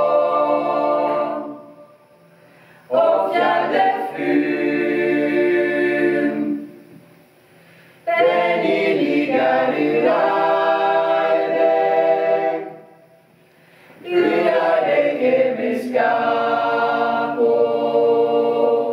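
A small mixed choir of men's and women's voices singing a cappella, holding sustained chords in four phrases of several seconds, with a short breath pause between each.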